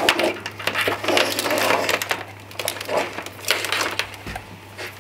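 Handling noise from an LED light-bar wiring harness being uncoiled and spread out across a countertop: the wires rustle and scrape in irregular bursts. A faint steady low hum sits underneath.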